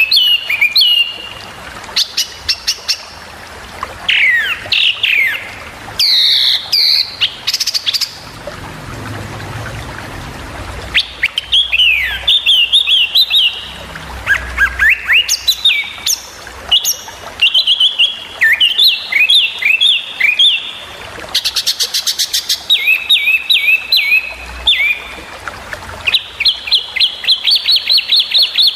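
A small songbird singing a rapid, varied string of sharp chirps, quick down-slurred whistles and fast repeated notes, with a short, very fast rattling trill about two thirds of the way through. These are the sharp 'tembakan' calls that such tutor recordings are made to teach to captive songbirds.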